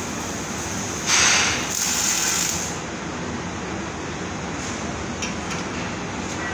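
A short MIG weld: a loud hissing crackle lasting about a second and a half, starting about a second in, over the steady drone of the shop floor.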